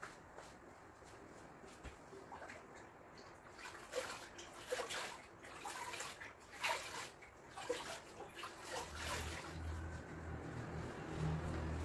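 Water sloshing and splashing in a plastic bucket as it is worked by hand, in irregular splashes. A low hum comes in about nine seconds in.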